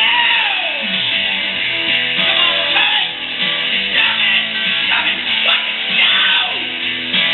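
Guitar-driven rock song recording playing an instrumental passage, with guitar notes sliding down in pitch several times.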